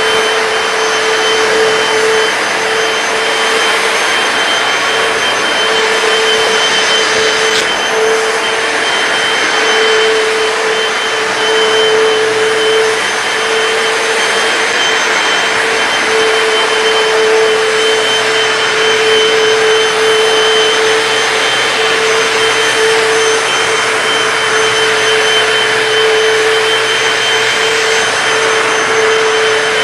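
Hoover PowerDash hard floor cleaner running steadily while wet-cleaning the floor: a steady motor whine over rushing suction hiss.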